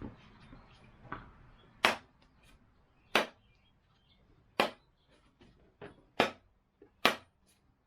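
Rubber mallet striking the axe, driving the head down onto the glued wooden handle: five sharp blows about a second and a half apart, with a few lighter taps between.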